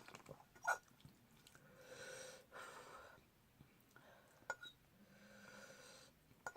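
Faint, heavy breaths through the mouth, two long swells of breath, from a person whose mouth is burning from very spicy noodles, with a few small clicks.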